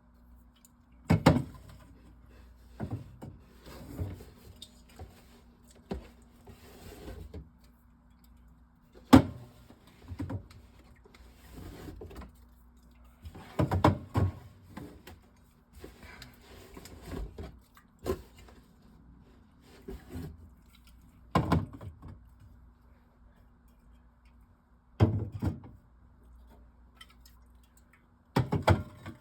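Cans of pop being set down and slid into rows on a refrigerator shelf: a string of separate knocks and clunks every second or two, the loudest about nine seconds in, over a faint steady hum.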